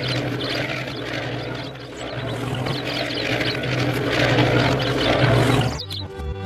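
Steady, rough machine running noise with a low hum underneath, swelling and easing in loudness. It cuts out just before the end, when background music comes in.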